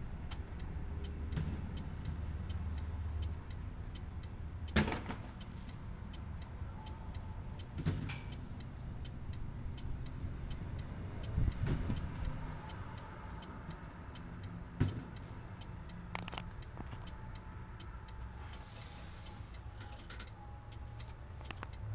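Steady low rumble of an idling vehicle engine, with a few sharp knocks scattered through it, about five in all.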